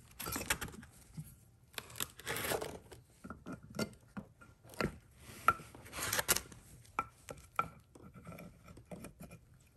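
Brake pads and a rusty rear brake caliper bracket being handled by hand as a pad is fitted into the bracket: irregular metal clicks and clacks with a few short scraping, rustling bursts, some clicks with a faint ring.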